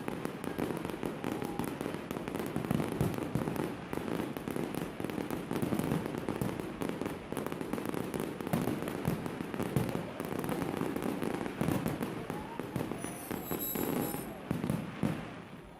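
Fireworks display going off in a dense, continuous barrage of bangs and crackles, with thin whistles near the end. The speaker takes it for the finale.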